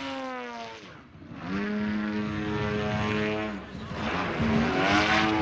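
Radio-controlled aerobatic model plane's motor and propeller buzzing in flight. The pitch falls in the first second, holds steady, dips briefly about two-thirds of the way through, then climbs back up.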